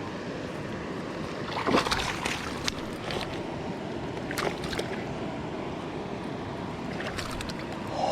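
River water running steadily, with a few short splashes about two seconds in, again near four and a half seconds, and near the end.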